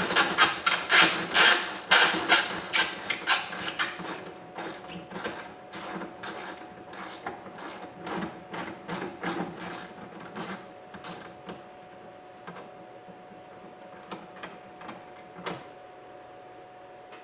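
Hand ratchet with socket and extension clicking in quick strokes as a 10 mm door-handle bolt is backed out. The clicks are loudest and densest at first, then thin out and fade over the second half, leaving only a few scattered clicks.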